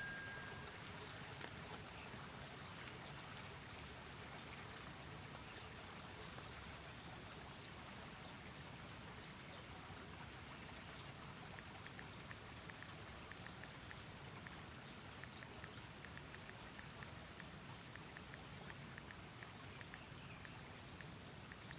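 Faint, steady trickle and splash of a small garden rockery waterfall, with light drips, and a run of faint light ticks in the second half.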